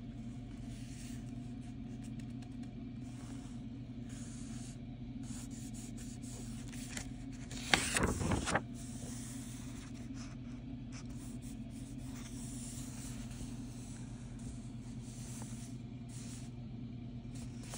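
Steady low hum with a faint hiss. About eight seconds in comes a short, louder rustle of paper pages being handled.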